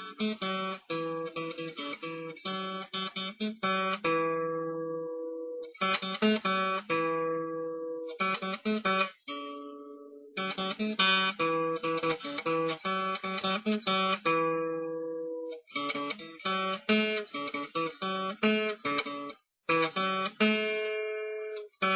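Acoustic guitar music: plucked and strummed notes in short phrases, each left to ring before a brief pause.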